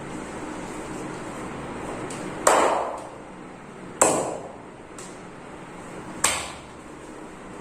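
Three sharp, loud hand slaps of massage percussion, each ringing briefly, about a second and a half and then two seconds apart.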